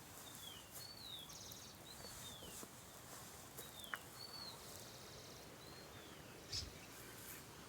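Faint birdsong: a bird repeating short, down-slurred whistled notes about once a second, with two brief buzzy trills among them, over a low background hiss. A short soft thump comes a little before the end.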